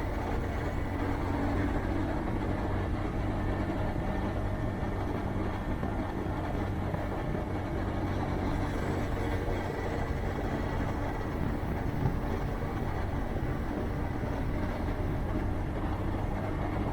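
Motorcycle engine running at a steady cruise, with road and wind noise.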